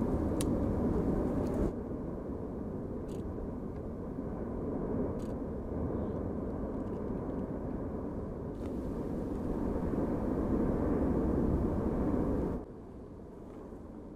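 Erupting volcano with lava fountaining, giving a steady deep rumble with a few faint cracks. The sound drops or jumps suddenly three times where the footage cuts between shots.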